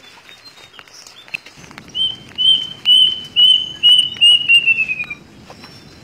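Plaintive cuckoo (kedasih) singing a loud series of about eight clear whistled notes that fall slightly in pitch and come faster toward the end. Under it, rustling and footsteps of people moving through undergrowth.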